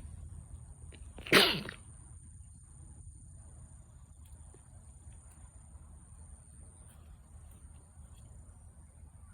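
A single sneeze, about a second and a half in.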